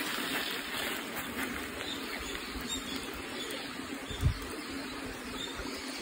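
Shallow mountain stream running steadily over rocks, a continuous babbling wash of water. A single low thump about four seconds in.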